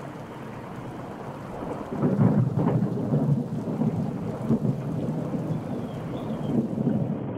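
Thunder over steady rain. A loud, low rumble breaks in about two seconds in and keeps rolling.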